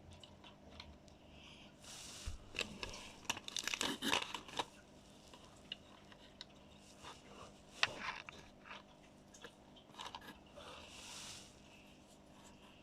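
Packaging rustling and crinkling with small sharp clicks and taps as a miniature toy house and its pieces are handled, busiest about four seconds in, with further bursts near eight and eleven seconds.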